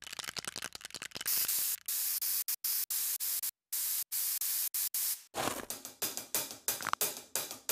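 Bursts of hiss-like static noise, switching on and off abruptly with a brief total dropout. About five seconds in, rhythmic music begins.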